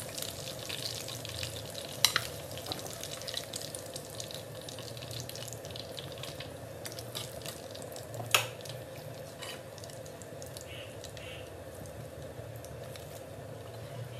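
Hot oil sizzling and crackling in a frying pan as fried chicken pieces, curry leaves and green chillies are scooped out with a metal slotted spoon. The spoon clinks against the pan twice, about two seconds in and again at about eight seconds, the second clink the loudest. The crackling thins out in the second half.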